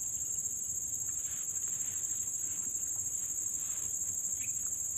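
Insects chirring in a steady, high-pitched chorus with a fast pulsing trill.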